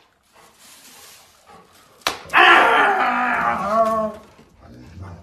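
A sharp slap about two seconds in, then a man's drawn-out wailing, as if crying, for about two seconds.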